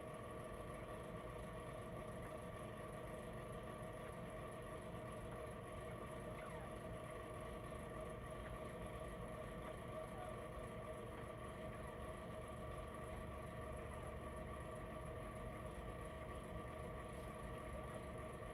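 Heater running with a steady rattle and hum.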